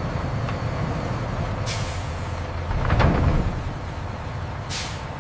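Heavy vehicle engine running steadily low, with short hisses of released air, like an air brake, about two seconds in and near the end, and a heavy thump about three seconds in.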